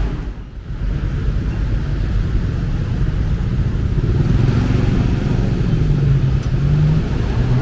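Bus engine rumbling steadily with road noise. A low engine tone comes up for a few seconds past the middle.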